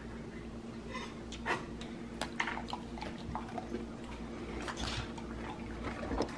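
A dog taking and eating an Oreo cookie: scattered small crunches, mouth smacks and clicks, over a steady low hum.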